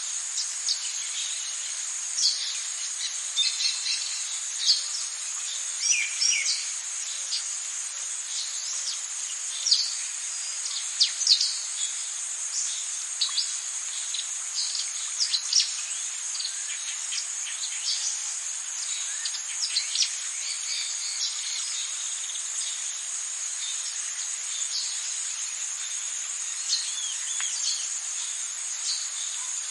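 Rainforest ambience: a steady, high-pitched drone of insects, with many short, quick bird chirps and calls scattered over it, busiest in the first two-thirds and thinning out later.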